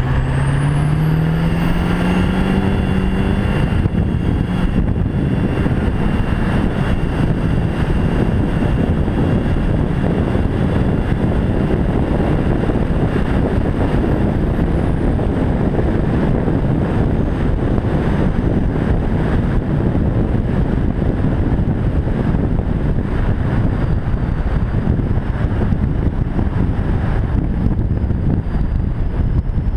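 A 2001 LB7 Duramax 6.6-litre V8 turbodiesel with a straight-pipe exhaust accelerating: the exhaust note rises over the first few seconds while the stock turbo's whistle climbs very high. It then settles into a steady run with heavy road and wind noise, and a high whistle falls away about halfway through.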